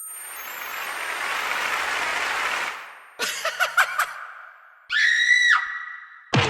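Synthesizer sound-effect patches from a Roland FA-06/FA-08 workstation played one after another. First a swelling whoosh of noise lasts nearly three seconds. Then come a quick cluster of sharp hits, a short electronic tone that steps through several pitches, and one more sharp hit at the very end.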